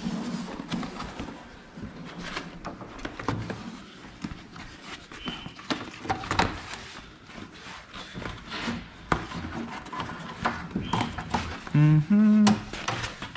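Inner door trim panel of a VW Gol G3 being worked loose and pulled off the door: scattered clicks, light knocks and rustling of the trim and door parts being handled. A man's voice breaks in briefly near the end.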